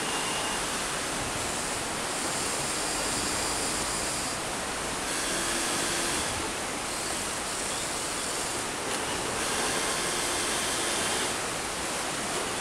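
Steady rushing of nearby flowing water, with the whir of a radio-controlled excavator's small electric motors starting and stopping every second or two as its arm and bucket move.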